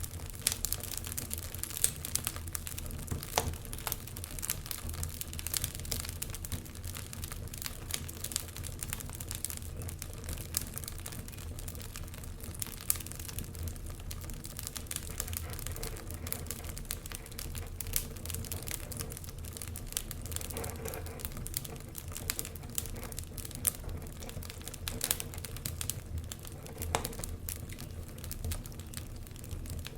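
Wood fire crackling in a fireplace, with frequent irregular pops and snaps over a steady low rumble.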